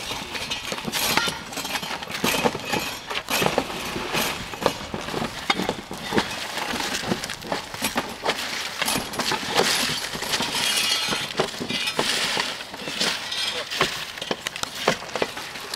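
Roofing shovels scraping and prying old asphalt shingles off a roof deck: a steady run of sharp scrapes, knocks and crunching clatter of breaking shingle debris.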